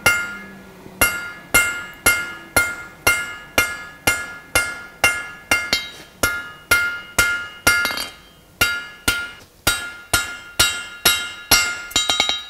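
Cross-peen forging hammer striking red-hot steel on an anvil, drawing out the metal at about two blows a second, each blow leaving a bright metallic ring. A short gap comes about eight seconds in, and a quick run of lighter taps follows near the end.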